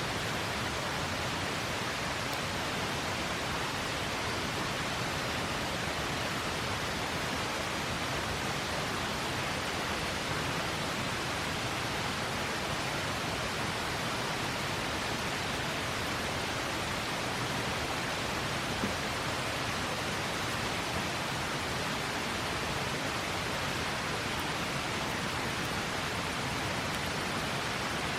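River water rushing in a steady, even wash, with one faint click about two-thirds of the way through.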